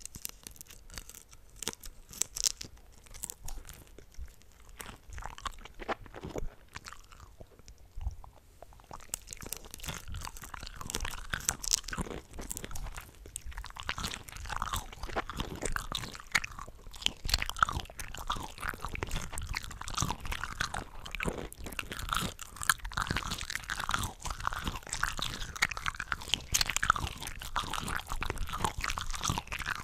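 Close-miked chewing and biting of cooked shrimp, with overlapping eating tracks layered together. Scattered bites at first, then from about nine seconds in a dense, continuous run of crunchy bites and chewing.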